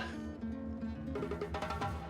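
Background music led by a plucked guitar over a steady, even pulse.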